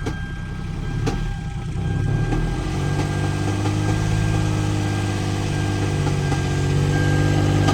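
2006 Hyundai Sonata's 3.3-litre V6 engine brought up from idle about two seconds in and held at a raised, slightly wavering speed, running in a way that sounds ugly. It is the engine fault behind the flashing check engine light, which the scan codes put on the crankshaft and camshaft position sensors.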